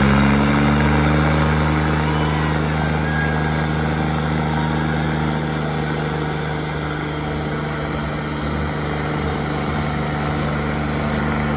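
John Deere 5310 tractor diesel engine at high revs, straining under full load while pulling against another tractor. The pitch climbs in the first moment, then holds steady.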